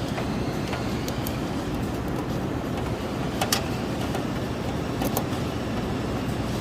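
Steady machine-like background noise with a few light clicks, typical of small parts and a ribbon cable being handled.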